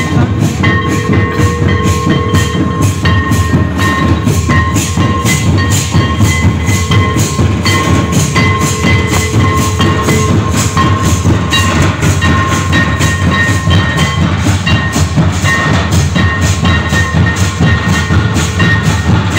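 Santal Lange dance music: drums playing a fast, even beat, with a thin high tone held over it.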